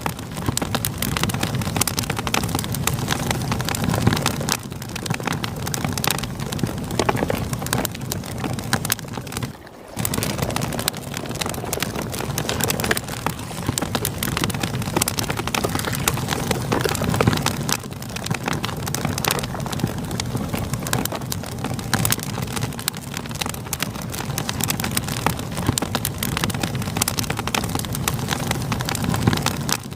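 Campfire crackling with many small sharp pops over a steady rush of flowing river water. The sound briefly drops away about ten seconds in, then resumes.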